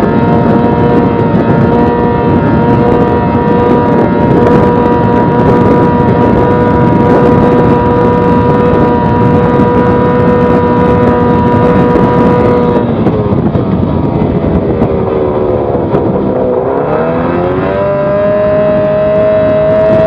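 Yamaha 20 hp outboard motor running flat out at a steady high pitch over a rush of water and wind. About two-thirds of the way through, the pitch drops as the throttle comes off for a turn, then climbs back up as the boat accelerates again.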